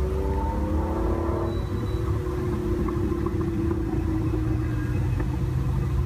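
Lamborghini Countach V12 engine accelerating. Its note rises in pitch over the first second and a half, then holds steady over a deep rumble.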